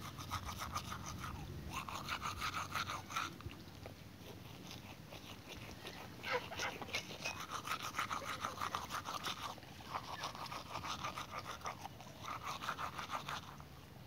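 Domestic geese feeding at the water's edge, their bills pecking and nibbling at grass and mud in quick runs of clicks. The runs come in several bursts with short pauses between.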